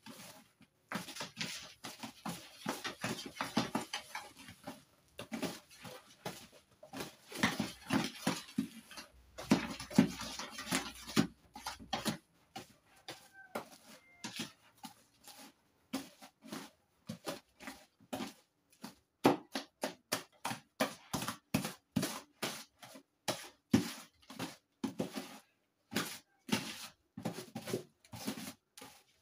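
Plastic spatula stirring and scraping a thick detergent paste in a plastic basin. The wet squelching and scraping runs fairly continuously at first, then settles into quick regular strokes, two or three a second, from about halfway through.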